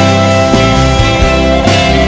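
Rock band playing an instrumental passage without vocals: guitar over bass and drums, with a steady beat.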